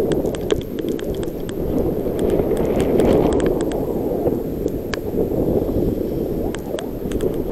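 Snow scraping and hissing under a rider sliding down a packed-snow slope, swelling about three seconds in, with many short sharp clicks scattered through it.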